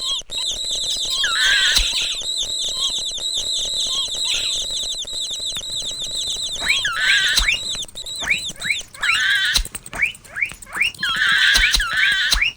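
Mouse squeaking sound effects: a long run of rapid, high-pitched chittering for about the first half, then separate short rising squeaks, several a second.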